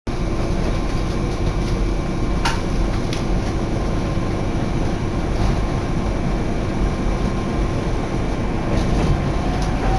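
Hankai Line streetcar running, heard from inside the car: a steady rumble of wheels and running gear, with two sharp clicks a few seconds in. Near the end a rising whine begins as the tram picks up speed.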